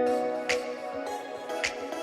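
Background music: soft sustained chords that change about once a second, with a light percussive tick about once a second.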